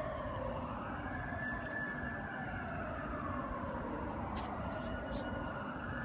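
Ambulance siren wailing: the pitch rises quickly, holds high, then falls slowly over a few seconds before rising again near the end, over a low background rumble.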